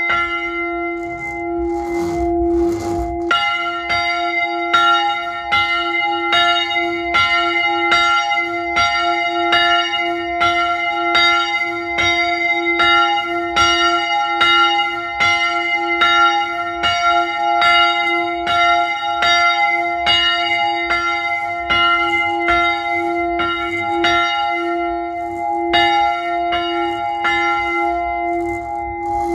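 Small church bell ringing alone, swinging in its wooden bell frame. After a first stroke, its clapper strikes in a steady, regular rhythm from about three seconds in, and each stroke rings on into the next.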